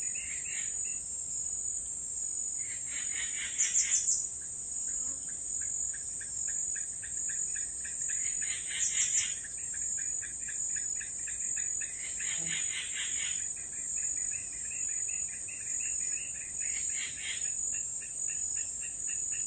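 Insects chirping in a continuous high-pitched drone, with louder pulsing trills that swell and fade every few seconds.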